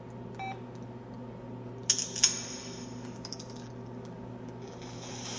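KTF-X3500 mobile phone being handled and operated: a short electronic beep near the start, two sharp clicks about two seconds in with lighter ticks after, and a hiss near the end.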